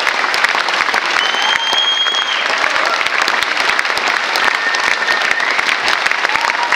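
Theatre audience applauding a curtain call: dense, steady clapping from a large crowd. A high whistle-like tone rises above it for under a second about a second and a half in.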